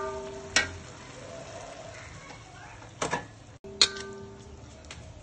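Metal spatula knocking and scraping in a metal wok of stir-fried beef and ginger, a few sharp clanks about half a second in, around three seconds and just before four seconds, some leaving the wok ringing briefly.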